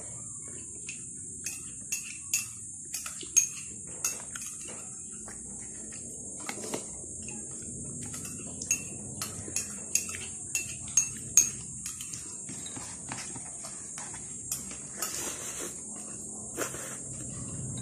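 Eating noises from a meal eaten by hand: irregular sharp clicks and clinks of fingers and food against a plate, loudest about three and a half seconds in and around eleven seconds. A steady high-pitched insect drone runs behind them.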